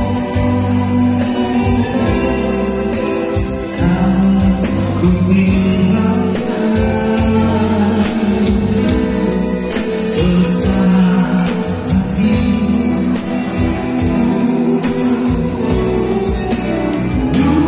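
Live band playing a song: electric bass, strummed acoustic guitars and keyboard, with a tambourine shaken in a steady beat.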